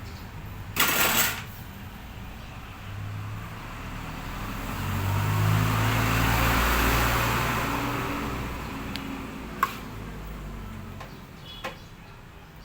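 A motor vehicle passing by, its engine hum and road noise swelling over a few seconds and then fading. There is a short loud noise burst about a second in and a sharp click near the end.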